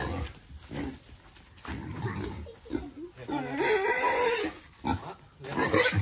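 Wild boar vocalizing: short grunts, then a drawn-out, wavering squeal about halfway through and another loud cry near the end.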